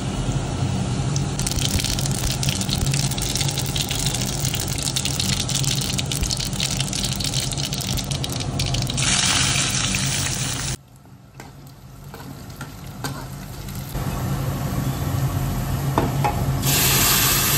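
Hot oil sizzling in a kadhai as cumin seeds, dried red chillies and chopped garlic fry for a dal tadka, with a steady low hum underneath. The sizzle drops off suddenly a little past halfway, then builds back and is at its loudest near the end.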